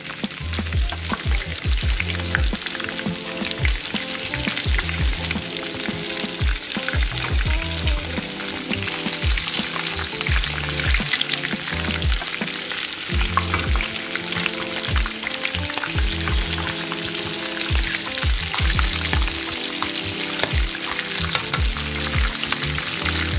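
Breaded chicken drumsticks sizzling and crackling as they shallow-fry in hot oil in a pan, with background music with a steady beat underneath.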